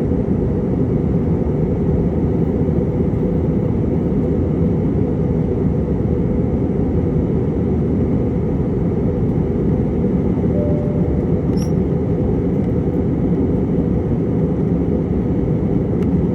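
Frontier Airlines jet in flight: the steady low rumble of engine and airflow noise, holding an even level throughout.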